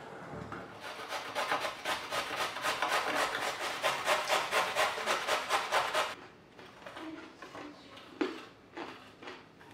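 A carrot being grated on a stainless steel box grater standing on a wooden cutting board: quick, even scraping strokes. They stop about six seconds in, leaving a few fainter strokes.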